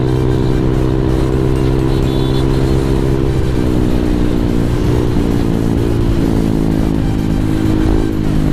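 Honda ADV 150 scooter's single-cylinder engine running steadily at highway cruising speed. The engine note dips a little a few times as the throttle eases.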